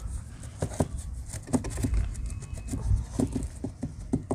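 Fingers tapping and pressing on the bottom of an upturned blue plastic mould, the plastic clicking and knocking irregularly several times a second, to loosen a dried mud-dirt shape that is stuck inside. A low rumble runs underneath.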